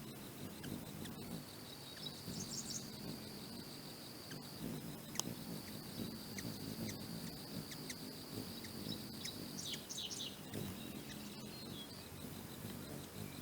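Ruby-throated hummingbirds at a feeder giving two short bursts of rapid, high chittering calls, a couple of seconds in and again past the middle, over a steady high insect trill.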